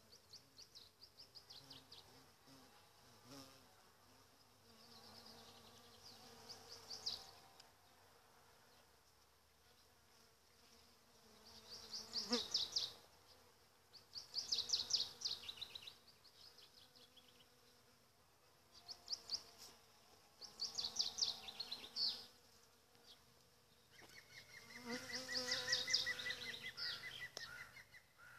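Honeybees buzzing around apricot blossoms, a faint steady hum that swells as a bee passes close near the end. Over it, several short bursts of high, rapid trilling from a small bird come and go.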